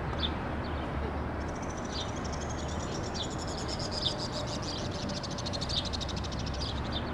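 Birds chirping in short repeated calls, joined about a second and a half in by a fast, even high trill, over a steady low rumble of outdoor background noise.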